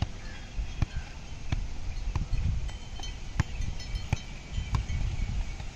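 A football being juggled on foot and knee: a regular series of dull thuds, one touch about every two-thirds of a second, over a low rumble.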